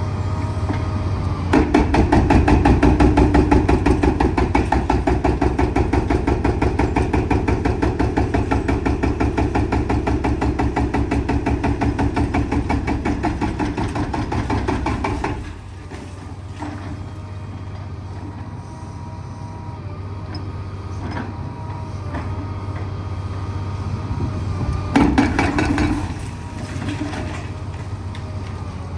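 Hydraulic breaker on a Liebherr 954 excavator hammering in a fast, even rhythm for about fourteen seconds, then stopping abruptly. The excavator's diesel engine keeps running steadily underneath, with a brief louder burst near the end.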